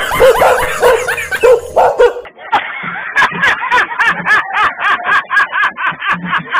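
Fake dog barking: excited barks and yelps, then from about three seconds in a fast run of short yaps, about five a second.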